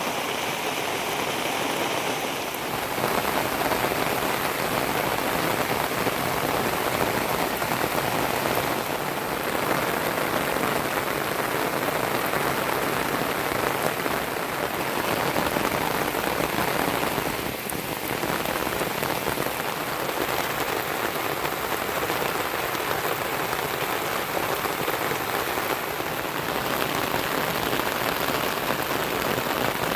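Heavy rain falling steadily and densely, getting a little heavier about three seconds in.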